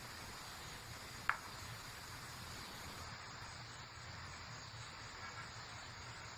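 Faint steady hiss with one short, sharp click a little over a second in; no siren tone is sounding.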